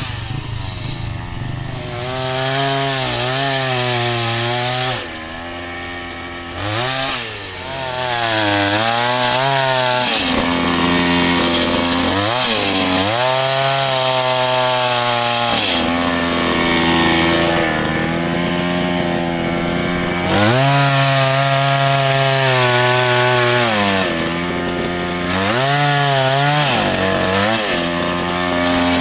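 Chainsaw running under load while cutting a large tree, its engine pitch sagging and climbing again over and over as the chain bites into the wood.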